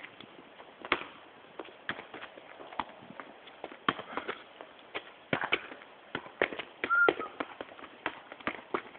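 Football being kicked and bouncing on tarmac, with irregular sharp thuds of kicks and bounces and the scuff of trainers running on the hard surface. A brief squeak comes about seven seconds in, among the loudest knocks.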